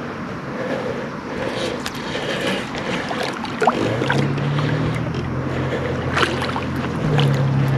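A small boat's motor starts a steady low hum about four seconds in, over wind and water noise, with scattered sharp clicks and knocks.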